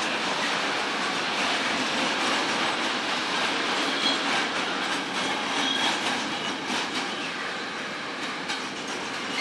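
Freight train of container wagons rolling steadily past: a continuous rumble of wheels on rail with some clicking over rail joints and a couple of brief high squeals.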